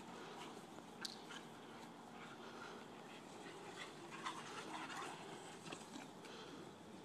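Two young dogs play-wrestling on grass: faint mouthing and scuffling, with a few short sharp clicks.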